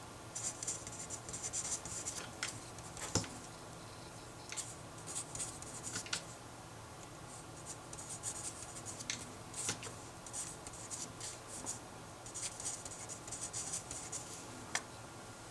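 Handwriting: short bursts of scratchy pen strokes on a writing surface, broken by a few sharp taps, as a factorisation problem is worked out by hand.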